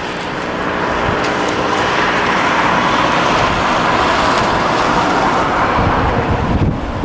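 DX-class diesel-electric locomotive running as it approaches, a steady rumble that grows louder over the first few seconds, with wind buffeting the microphone.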